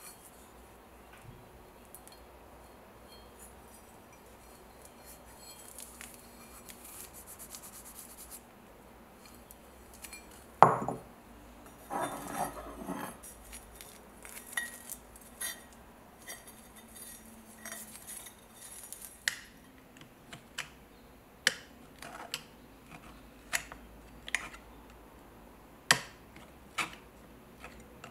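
Metal parts of an old ship's compass handled and knocked together: quiet rustling at first, one loud knock about ten seconds in, a short rattle of clinks, then scattered light metallic clicks and taps.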